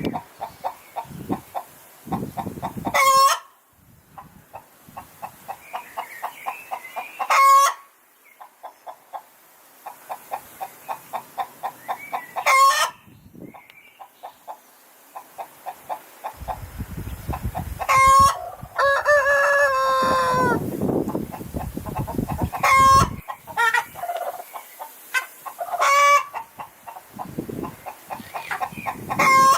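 Hens cackling: runs of quick, repeated clucks that build to a loud squawk, over and over, the cackle hens give after laying an egg. A rooster crows once, a little past the middle.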